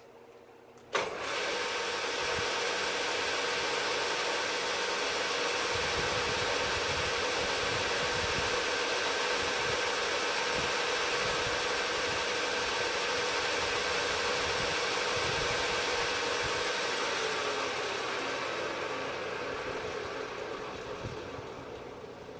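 Vertical knee mill switched on with a click about a second in; the spindle motor runs with a steady hum and whine while the end mill cuts, with rough, uneven cutting noise through the middle. Near the end the motor is switched off and the sound winds down as the spindle coasts to a stop.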